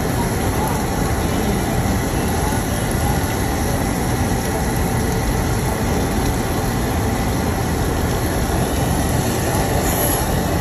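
Steady, loud rushing roar of a restaurant dining room's background noise, unchanging throughout.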